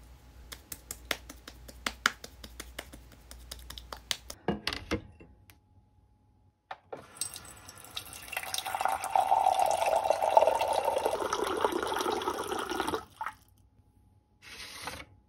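Water running from a tap for about six seconds, then shut off suddenly. Before it come a series of light clicks and a knock.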